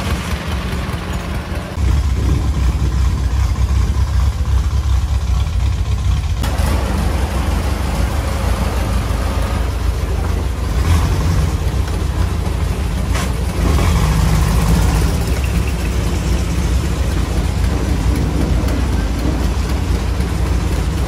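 Long-tail boat engine, an unenclosed car engine driving a long propeller shaft, running under way. It is opened up about two seconds in and then runs steadily and loudly, with a few brief knocks.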